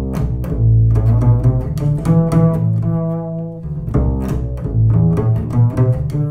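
Acoustic double bass played pizzicato: a slow, free-time line of plucked notes through a minor-chord blues, with low notes left ringing under the higher ones.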